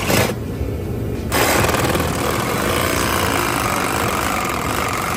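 Milwaukee Hackzall one-handed reciprocating saw cutting through the steel frame tube of a Honda Shadow motorcycle. After a brief burst at the start, the blade bites in fully about a second and a half in and saws steadily.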